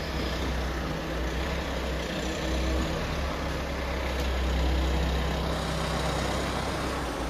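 Mahindra Thar's engine running steadily at low revs, idling as the SUV sets off.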